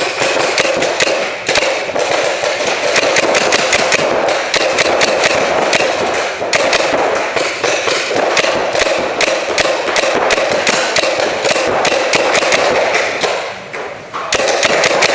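Reball markers, a Tippmann 98 among them, firing rapid strings of shots, several a second, echoing in a large indoor arena, with a brief lull near the end.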